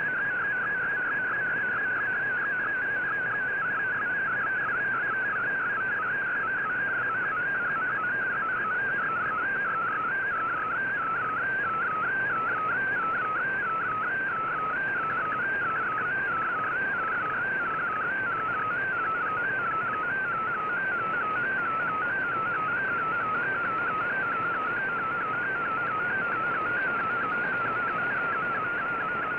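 MFSK digital-mode data signal from the VOA Radiogram, heard through an Icom IC-R9500 shortwave receiver. It is a warbling tone that hops quickly up and down within a narrow pitch band, steady and unbroken over a background of receiver hiss.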